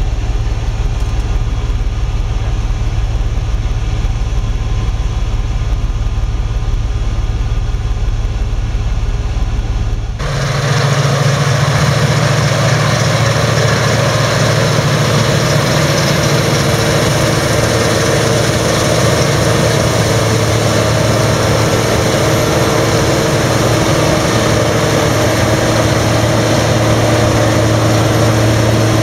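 John Deere combine harvester running with a deep steady rumble; about ten seconds in it changes abruptly to a Claas Tucano combine harvester working in the field, a louder steady engine note with several held tones.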